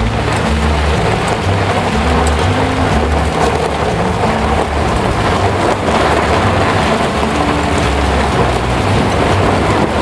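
Steady loud rush of wind and road noise while moving along a busy road, with vehicles passing close by.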